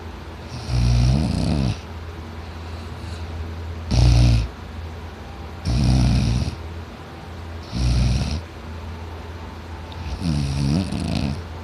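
A man snoring very loudly: five rattling snores about two seconds apart, over a steady low hum.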